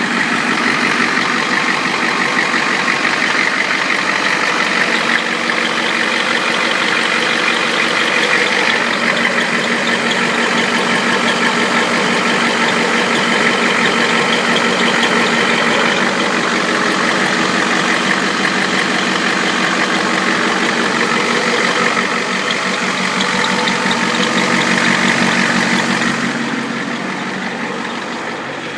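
Ford 7.3 L IDI V8 diesel in an F-350, fitted with a Holset turbocharger, running steadily with the turbo whistling over the engine. The sound eases a little near the end.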